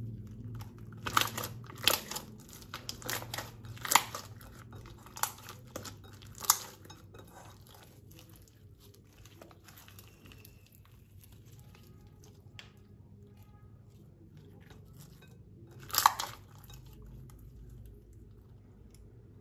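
Slime being squeezed and worked by hand, with a run of sharp crackles and pops over the first several seconds and one louder pop about sixteen seconds in.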